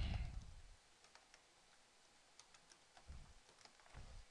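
Faint typing on a computer keyboard: a scattered run of light key clicks, with a couple of soft low thumps near the end.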